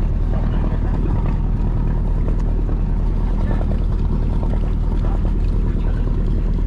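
Small excursion boat's engine running steadily, a low even drone heard from on board.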